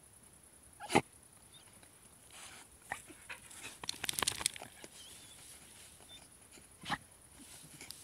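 Glen of Imaal Terriers digging a hole in sandy soil, with a quick run of scratching strokes around four seconds in, and two short sharp dog sounds, about a second in and again near the end.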